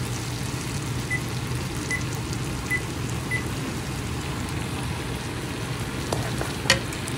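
Butter with chopped garlic and onion sizzling gently in a wok, stirred now and then with a wooden spatula. Four short high beeps sound in the first few seconds, and a single sharp knock near the end is the loudest sound.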